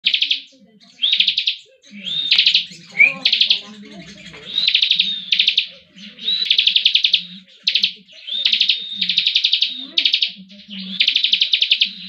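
Caged bar-winged prinia (ciblek) singing its rapid 'ngebren' trill: a run of high, fast-pulsed trills, each half a second to a second long, repeated about once a second.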